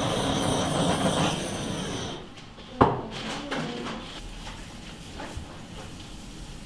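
Handheld kitchen blowtorch running with a steady hiss as it sears the fish topping of a sushi roll, shutting off about two seconds in. Just under a second later comes a single sharp knock, the loudest sound, followed by faint handling sounds.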